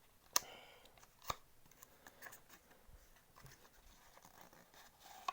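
Handling of a cardboard trading-card deck box and its cards: two sharp clicks, about half a second and a second and a half in, then faint scattered rustling and small ticks.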